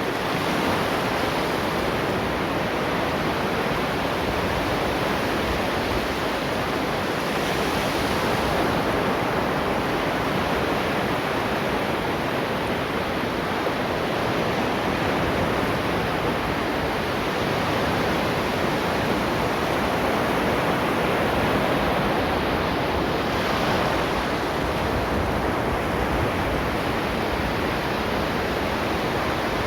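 Ocean waves breaking and washing on the shore in a steady rushing noise, swelling slightly a couple of times.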